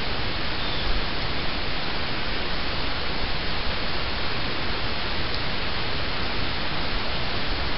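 A steady, even hiss like static, unbroken and unchanging in level.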